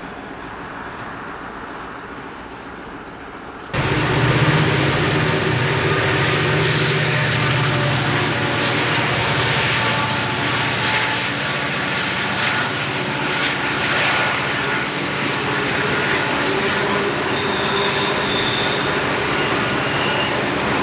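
Loaded coal hopper cars of a freight train rolling past on a curve: a steady rumble and rattle of steel wheels on rail that jumps suddenly louder about four seconds in. Brief high-pitched wheel squeals come near the end.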